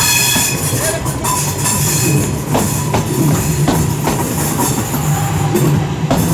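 Class 323 electric multiple unit running past close by: a steady low hum from the train, with several sharp clicks from the wheels over rail joints about halfway through.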